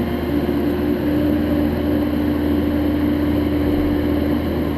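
Mini excavator's diesel engine running steadily under hydraulic load while the blade is raised, a constant low drone with a steady higher hum over it.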